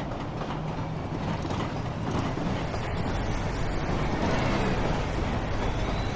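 Steady rumble of city traffic and a train running on an elevated track, growing slightly louder.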